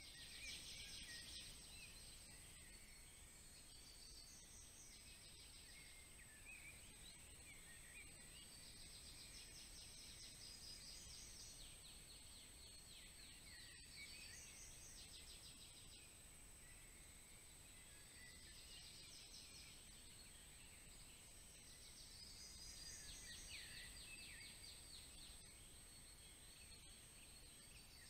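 Faint songbird song: trilled phrases, each made of rapidly repeated high notes, sounding every few seconds and sometimes overlapping, over a low steady background hiss and a thin steady high whine.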